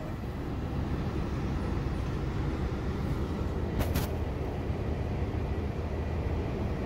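Steady low rumble, with two short clicks close together about four seconds in.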